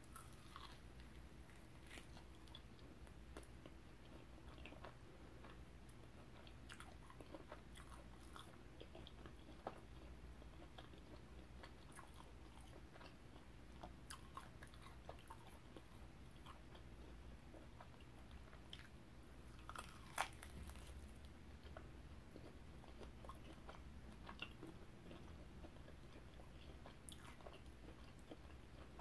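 Faint close-miked ASMR eating sounds: biting and chewing of barbecue-sauced pork ribs, heard as small scattered clicks. One sharper click comes about twenty seconds in.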